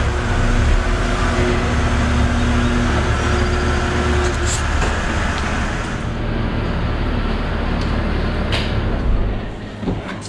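BMW N52 3.0-litre straight-six engine running at low speed, a steady low rumble, as the car creeps onto the dyno rollers. About six seconds in the sound turns duller, its high end dropping away.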